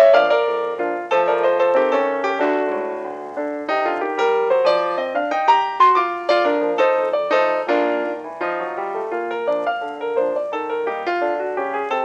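Background piano music: a continuous run of quick, struck notes.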